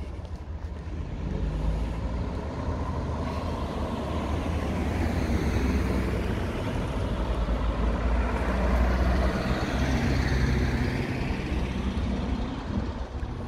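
Road traffic passing close by: the noise swells over several seconds, peaks twice in the middle as vehicles go past, and eases off near the end, over a low wind rumble on the microphone.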